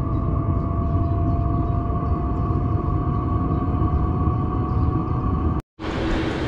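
Chinese diesel air heater running while still warming up, heard under the van at its exhaust silencer: a loud, steady combustion roar with a steady tone over it, likened to a rocket taking off. Near the end the sound breaks off for a moment and the heater is heard again from inside the van.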